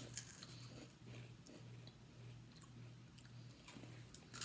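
Faint chewing of crunchy Pop-Tarts cereal pieces, with a few soft clicks and a low steady hum underneath.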